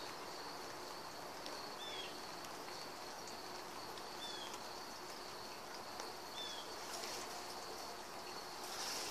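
Faint outdoor ambience: a bird giving a short, falling chirp about every two seconds over a steady low hiss.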